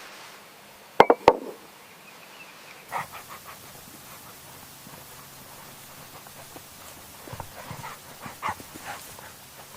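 Puppies panting in short breathy bursts, with three sharp knocks close together about a second in, the loudest sounds here.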